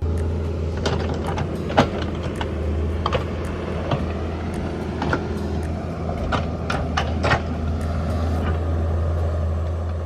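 Heavy construction machine, such as a skid steer, running with a steady low engine drone, with irregular metal clanks and knocks over it; the loudest knock comes about two seconds in, and a quick run of them comes around six to seven seconds in.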